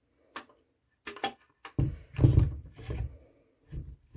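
Ruger 10/22 parts being worked back into place by hand: a few sharp metal clicks, then about a second of low knocking and rubbing as the assembly is handled, and one more knock near the end.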